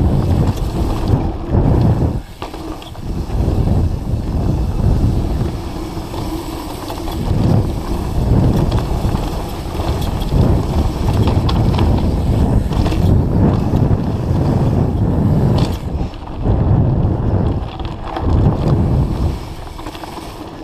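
Mountain bike descending a dirt forest trail at speed: wind buffeting the camera microphone over the tyres rolling on dirt and the bike rattling and clicking over bumps, swelling and easing with the terrain.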